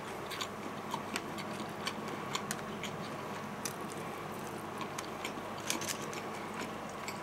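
A person chewing fried chicken cartilage, with scattered small crunches and clicks over a faint steady hum.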